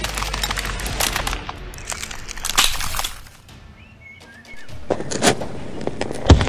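Cartoon action sound effects: a long run of rapid crackling, clattering strikes, a short lull, then more sharp bursts ending in a heavy thud near the end.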